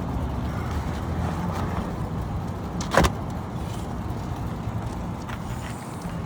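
Steady low background rumble with a single sharp knock about three seconds in.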